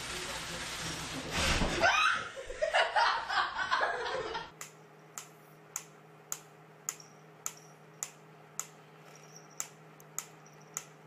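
Wooden pyramid-style mechanical metronome ticking steadily, a little under two ticks a second, over a low steady hum. It starts after a louder stretch of laughter that cuts off suddenly about four and a half seconds in.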